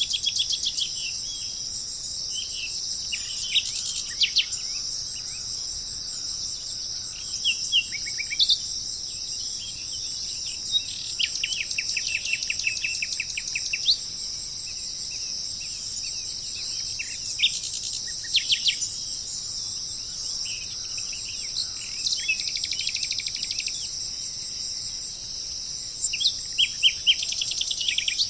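Small birds chirping and trilling in short, repeated phrases over a steady, high-pitched insect drone. The bird calls come and go, busiest near the start and again near the end.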